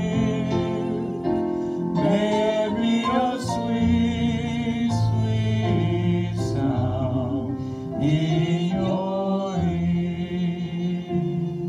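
A hymn sung over instrumental accompaniment, with long held notes sung with vibrato.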